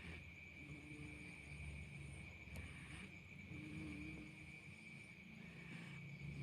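Six-month-old baby snoring in her sleep: a run of low, rough breaths that come and go every second or two. A steady high-pitched tone runs underneath.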